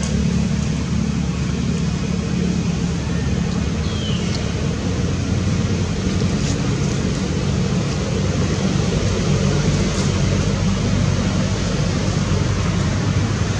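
Steady, loud rumbling noise with a hiss over it, unchanging throughout, with one short, high, falling chirp about four seconds in.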